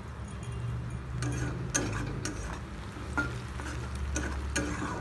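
Sliced onions sizzling in hot oil in a metal kadai while a spatula stirs them, scraping and knocking against the pan about six times at uneven intervals.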